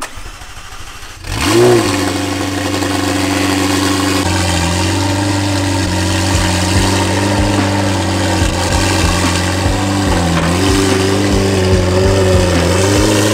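A McLaren 720S's twin-turbo V8, breathing through a Valvetronic Designs exhaust, cold-started. After a second of cranking it catches with a loud flare that rises sharply in pitch, then settles into a steady high cold idle, dipping and rising slightly near the end.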